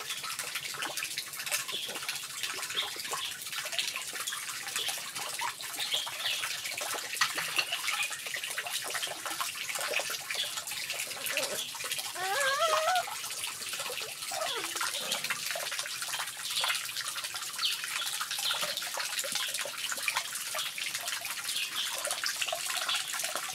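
Water pouring steadily from a bamboo pipe into a small pond. About halfway through, a puppy gives a short, wavering whine.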